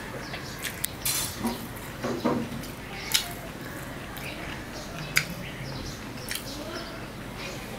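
Close-up eating sounds of a man eating rice and mutton curry by hand from a steel plate: chewing and mouth smacks, with fingers scraping the plate. A few sharp clicks stand out, the loudest about five seconds in.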